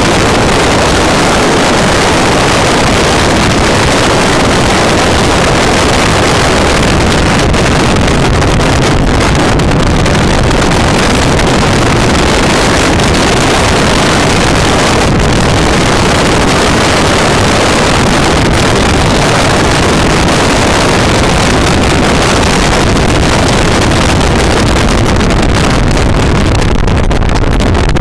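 Sports car driven at speed on a race track, heard from an onboard camera: engine and tyre noise buried under heavy wind rush on the microphone, loud and unbroken.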